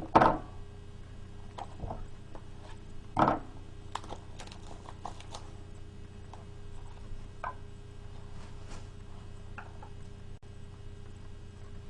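Handling of a trading-card pack and its packaging on a table: two solid knocks, one right at the start and one about three seconds in, then a run of light clicks and rustles, over a steady faint hum.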